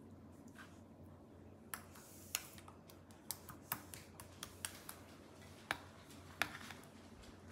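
A metal spoon clicking and scraping against a plastic sauce tub and a pizza pan while spreading pizza sauce on dough: about a dozen light, irregular clicks, the loudest about six seconds in.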